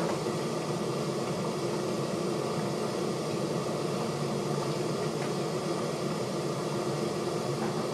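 Steady mechanical hum and hiss of room background noise, with a couple of faint ticks.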